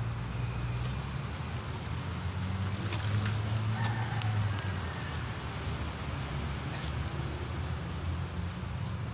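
Steady low rumble of an idling vehicle engine, with a few light knocks of acacia logs being handled and lifted.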